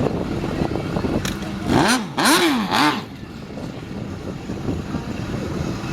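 An engine revved in three quick blips, each rising and falling in pitch, about two seconds in, over a steady low rumble of idling engines.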